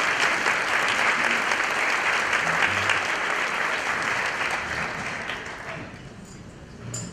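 Audience applauding, dying away about six seconds in, with a short knock near the end.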